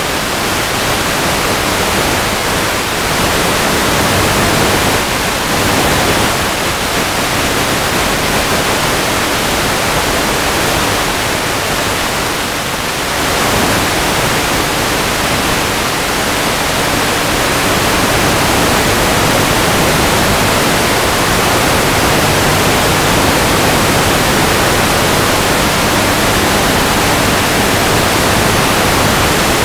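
Steady loud hiss of radio static on the analog FPV video link's audio channel, with a faint low hum underneath. The signal is weak at long range.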